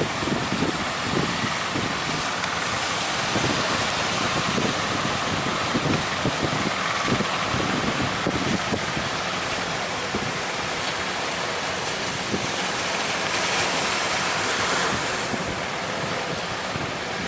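Sea surf breaking and rushing, with strong wind buffeting the microphone in irregular gusts.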